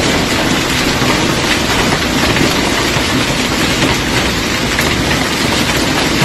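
Heavy hail falling on a street: a loud, steady, dense clatter of hailstones hitting the pavement.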